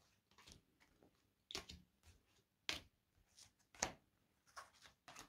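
Oracle cards being dealt one by one onto a table: a string of faint, light taps, about one every half second.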